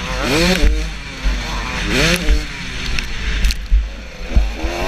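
KTM 250SX two-stroke motocross engine revving hard under acceleration, its pitch climbing steeply and dropping back twice through gear changes, then climbing again near the end. A heavy wind rumble runs underneath on the helmet camera's microphone, and there is one sharp knock about four and a half seconds in.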